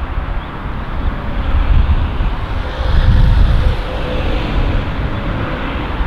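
Wind buffeting the microphone outdoors: a low rumble that swells and fades in gusts over a steady rushing noise.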